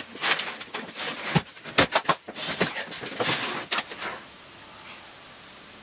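A run of light, irregular clicks and knocks, as of things being handled and set down, stopping about four seconds in and leaving only faint room hiss.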